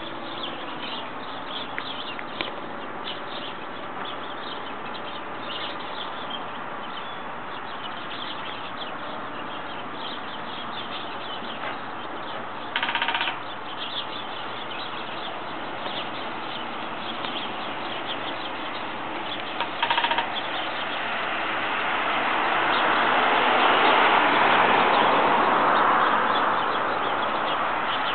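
Woodpecker pecking at a utility pole as it excavates a nest hole: scattered taps, with two short rapid bursts of hammering about halfway and two-thirds of the way through. A passing vehicle swells up and fades away near the end.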